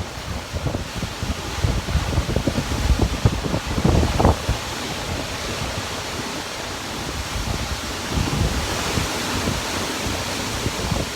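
Typhoon wind blowing hard in gusts, a steady rushing hiss with irregular low buffeting on the microphone, heaviest about four seconds in.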